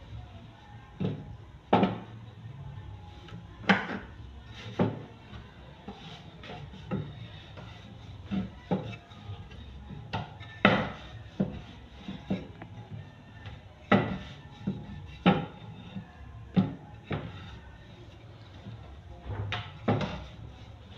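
Wooden rolling pin rolling dough out on a floured table, knocking against the tabletop in irregular sharp knocks every second or two, with music in the background.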